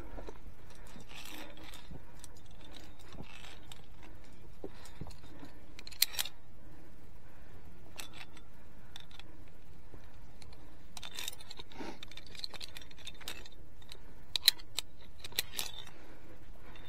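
Metallic clinks and jangles of via ferrata carabiners and lanyard gear against the steel safety cable, scattered sharp clicks with a clear one about six seconds in and a cluster near the end, over a steady hiss.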